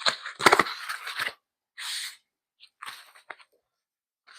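Packing material being pulled off a boxed bike, crinkling and rustling in irregular bursts, with a thump about half a second in.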